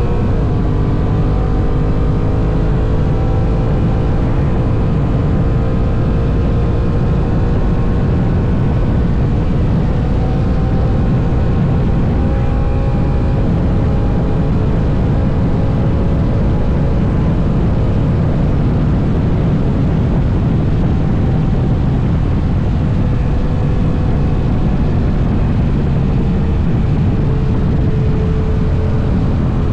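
Honda NT1100's 1084 cc parallel-twin cruising at highway speed, its engine note under heavy wind rush on the microphone. The engine note rises and falls a little as the speed changes.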